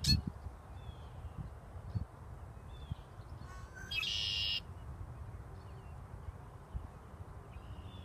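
Male red-winged blackbird singing once, about four seconds in: a short low note and then a buzzy trill lasting about half a second. Faint chirps come and go, over a steady low rumble, with a knock at the very start.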